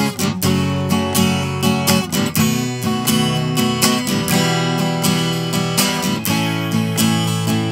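Acoustic guitar strumming chords in a steady rhythm, an instrumental passage of a sung pop-song cover with no voice.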